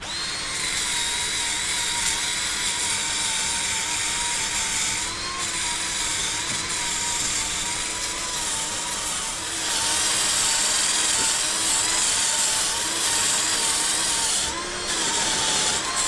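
Cordless drill spinning a wire wheel brush against grimy, crusted material to scour it clean. There is a steady, slightly wavering motor whine over the scratchy hiss of the wires. It grows louder about ten seconds in and eases briefly twice.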